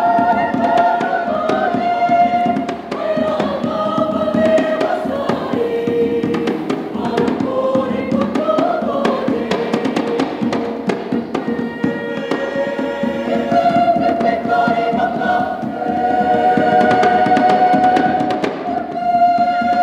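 Mixed choir singing a Makassar traditional song in held, shifting chords, with sharp clicks from bamboo struck in rhythm throughout.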